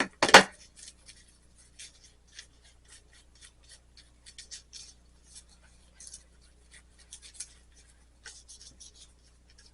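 An applicator rubbing black patina onto the solder seams of a soldered stained-glass rose: many short, irregular scratchy strokes, with one loud knock just after the start.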